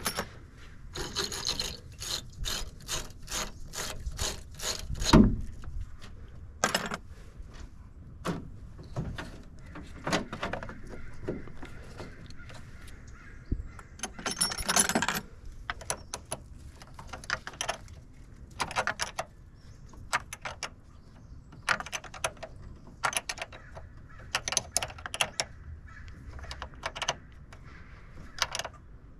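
Ratchet wrench clicking in quick, even strokes while tightening a battery terminal clamp, with one loud knock about five seconds in and further bursts of ratcheting after it.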